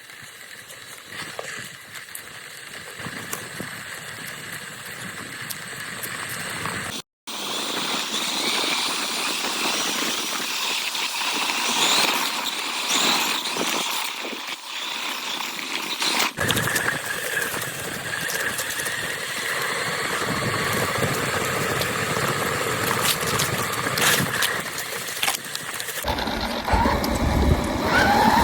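Hosim X07W brushless RC car running hard: a high electric motor whine that rises and falls with the throttle, over a noisy hiss. The sound changes abruptly several times where clips are cut together, and near the end the whine climbs sharply.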